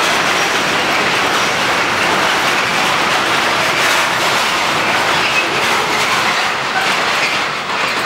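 Freight wagons carrying lorry semi-trailers rolling past: loud steady wheel-on-rail noise with clickety-clack over the rail joints. The last wagon passes near the end.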